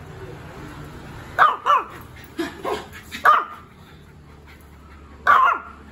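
A dog barking: about six short, sharp barks, in two quick pairs and then one more near the end.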